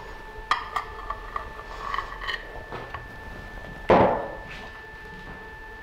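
A plate and utensils clinking and knocking lightly several times, then one loud knock about four seconds in, like a plate set down on a table. A faint steady high tone runs underneath.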